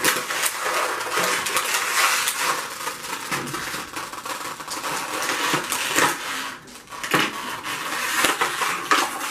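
Stiff clear plastic toy packaging crinkling and crackling with many sharp clicks as it is cut and pried open by hand, with a brief lull about seven seconds in.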